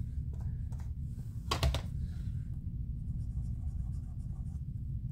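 Chalk applicator scratching and rubbing lightly on paper, with a few small taps and one sharper knock about a second and a half in, over a steady low hum.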